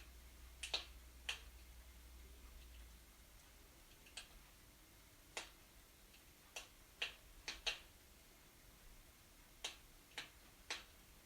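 Wood burning in a fireplace, crackling: about a dozen sharp pops and snaps at irregular intervals, some in quick clusters.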